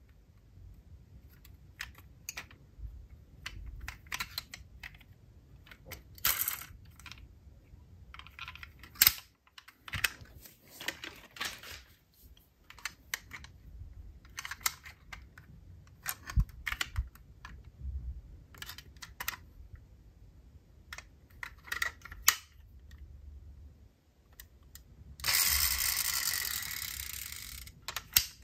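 Die-cast metal toy cars being handled: a scatter of small, sharp clicks and clinks of metal and plastic. Near the end comes a sustained hissing scrape of about three seconds that fades away.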